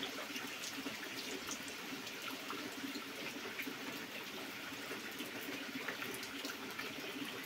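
Heavy rain falling steadily on puddles over bare earth: an even hiss dotted with the ticks of individual drops hitting the water.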